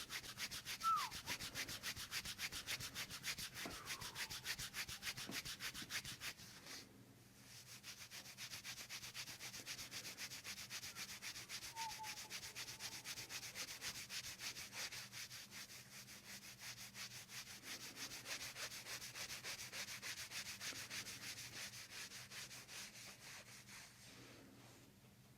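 Hands rubbing quickly over skin in soft-tissue massage of tense muscles, a soft hiss in a fast, even rhythm with a short break about seven seconds in.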